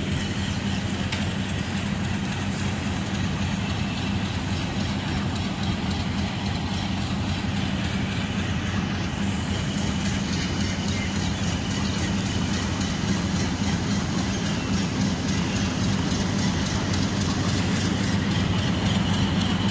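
Pakistan Railways passenger train: a steady low engine hum with a continuous rumbling noise over it.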